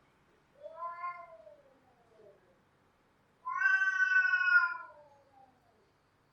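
Cat yowling twice. A quieter call about half a second in rises and then falls in pitch; a louder, longer one about three and a half seconds in slides slowly downward.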